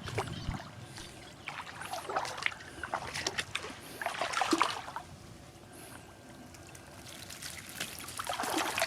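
Water splashing and trickling in irregular bursts, quieter for a few seconds in the second half.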